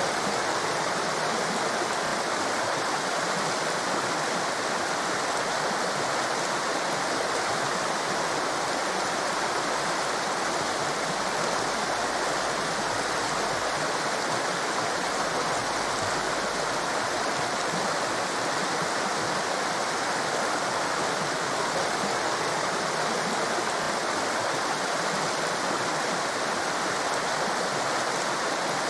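A fast-flowing torrent rushing, a steady unbroken roar of water.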